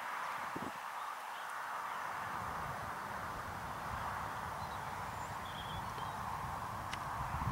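Wind buffeting the microphone in an open field, with a low irregular rumble setting in a couple of seconds in over a steady hiss, and a few faint bird chirps.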